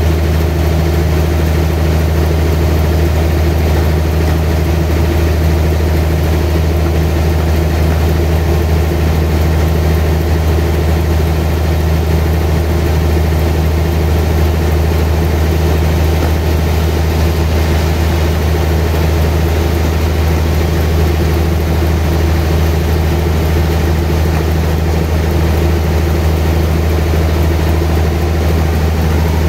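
Large sawmill band saw running steadily as it saws lengthwise through a big trembesi (rain tree) log: a loud, unchanging low machine hum.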